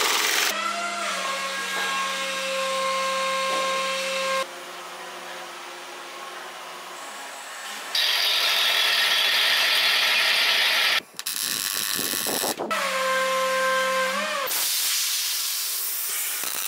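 Workshop machine sounds cut one after another. A short burst from a pneumatic impact wrench comes first, then a steady multi-pitched motor whine, loud stretches of hissing, and the whine again. Near the end comes the high-pressure hiss of a waterjet cutter.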